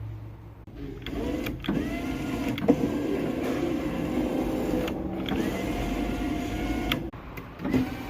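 Daewoo Nexia electric window motor driving the glass through its regulator, in three runs of a few seconds each. Each run opens with a rising whine that levels off into a steady hum, and a click comes as a run starts or stops.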